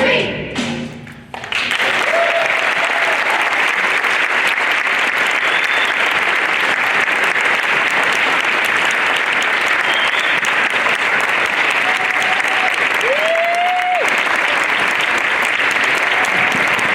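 The last sung note of a choir fades out in the first second or so. Then an audience claps steadily. A few voices cheer over the clapping, one with a shout that rises in pitch about two-thirds of the way through.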